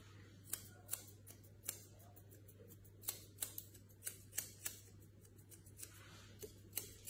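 Grooming scissors snipping the hair on a Shih Tzu's face: a dozen or so short, faint snips at irregular spacing.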